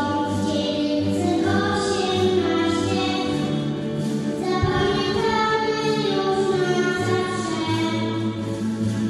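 Choral music: a choir singing long, held notes over a sustained low accompaniment.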